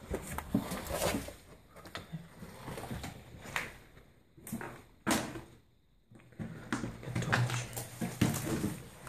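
Irregular knocks, scrapes and crunching, as of someone moving over a debris-strewn floor, with a short quiet gap about six seconds in.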